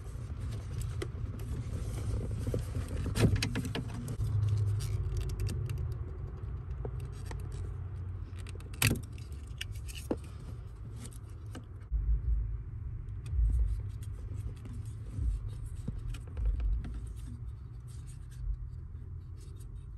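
Clicks and rattles of a plastic wiring connector as a car's turn-signal flasher module is unplugged from under the dash and a replacement flasher relay is fitted, with a few sharp clicks and dull low thumps from the handling.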